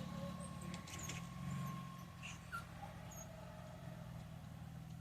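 A distant engine running steadily, a low hum that swells slightly in the first couple of seconds, with a few faint, short high-pitched animal calls over it.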